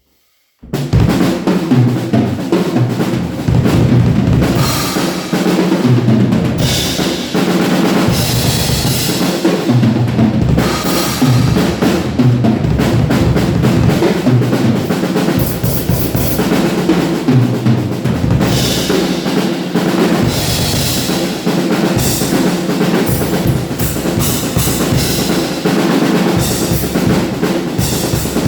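Acoustic drum kit with Zeus cymbals played continuously, bass drum, snare and cymbals together, picked up by a single cellphone microphone. The playing starts abruptly under a second in.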